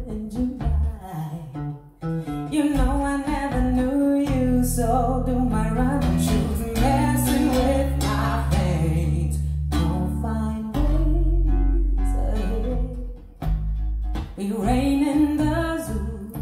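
Recorded song with guitar and deep bass, played through Polk T50 tower speakers driven by a Loxjie A30 amplifier and picked up by a microphone in the room.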